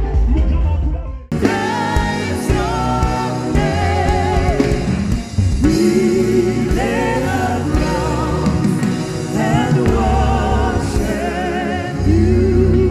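Gospel worship song: a singer holds wavering notes over instrumental backing. About a second in, the music cuts abruptly from one recording to another.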